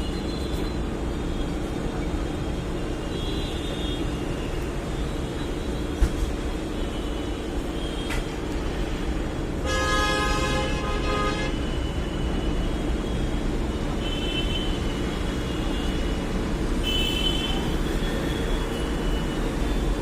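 Steady low background hum, with a vehicle horn sounding once for nearly two seconds about halfway through.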